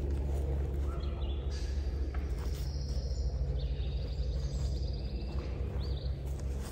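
Small birds chirping high, with a rapid trill in the middle, over a steady low rumble.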